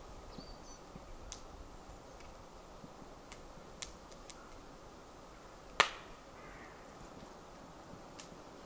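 Wood fire crackling: a few sharp separate pops, one much louder crack about six seconds in, over faint steady outdoor ambience.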